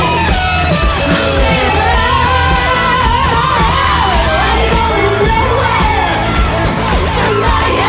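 Loud music with a singing voice that slides and wavers in pitch, over a steady low bass.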